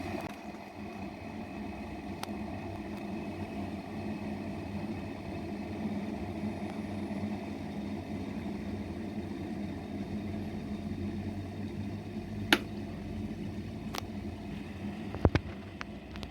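Electric kettle heating water with a steady low rumble and hum, broken by a few sharp clicks about twelve, fourteen and fifteen seconds in.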